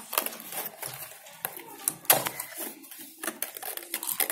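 Small plastic chemical bottles and a clear plastic bag handled in a cardboard kit box: irregular clicks and knocks mixed with plastic rustling, the sharpest click about two seconds in.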